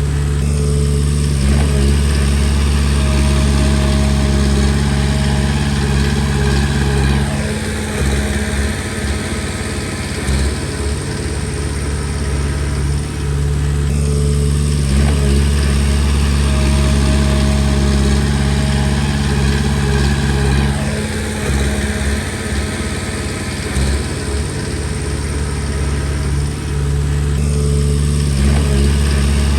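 Komatsu D20P crawler bulldozer's diesel engine running, its note steady for several seconds, then unsettled and changing, then steady again, in a cycle that repeats about every 14 seconds.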